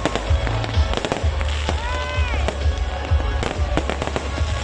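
Fireworks going off in quick succession: many sharp bangs and crackles over a deep rumble. Music plays underneath, with a held tone that rises and falls about two seconds in.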